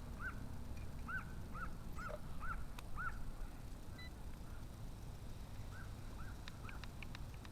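A bird calling a fast series of short, arched chirps, in two runs, over a steady low rumble of wind on the microphone.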